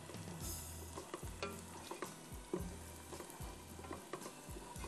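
Chopped onion frying in oil in a pot, a quiet sizzle, while a wooden spoon stirs it with irregular scrapes and light knocks against the pot. The onion is being fried until just lightly golden.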